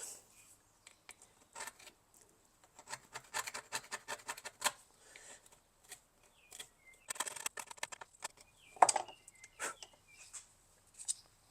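Putty knife scraping dried, partly gooey weather-strip adhesive off the back of a plastic hubcap center, in short irregular strokes, with one sharp click a little before nine seconds in.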